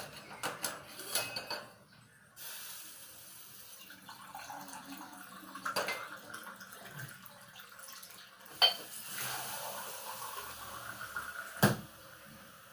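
Metal kitchen utensils and pots clinking and clattering: a quick run of light clicks at the start, then two sharp metallic knocks later on. Under them runs a steady hiss from about two seconds in.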